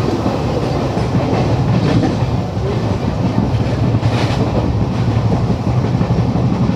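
Train of LHB passenger coaches running steadily at speed: a continuous low rumble of wheels on rail, with a few faint clicks from the track.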